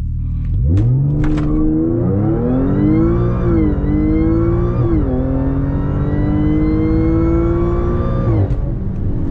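Tuned 500 hp Audi A6 on E85 making a full-throttle launch from a standstill, heard from inside the cabin. The engine note jumps up as the car leaves the line under a second in, then climbs hard with quick upshifts about three and a half and five seconds in. It pulls through the next gear until the throttle is lifted near the end.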